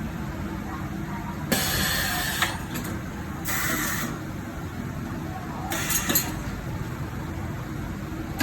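Compressed air hissing in three short bursts from a pneumatic tool during a tyre change, over a steady low hum, with a sharp knock at the end.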